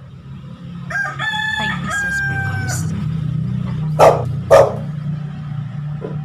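A rooster crowing once, one long call of about two seconds. About four seconds in come two short, loud noises half a second apart, the loudest sounds here, over a steady low hum.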